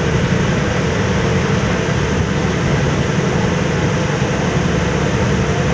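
Steady drone of the Joko Tole ferry's engines under way, mixed with the rush of its churning wake and wind blowing across the microphone.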